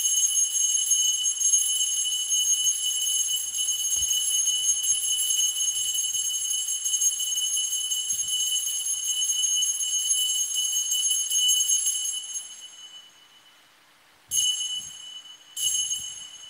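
Altar bells ringing at the elevation of the chalice after the consecration at Mass, a sustained ringing that fades out about twelve seconds in, then two short rings near the end.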